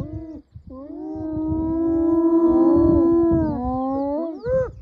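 A group of spotted hyenas calling together: overlapping drawn-out yelling calls that swell for about three seconds, then short rising whoops near the end. A low rumbling sits underneath.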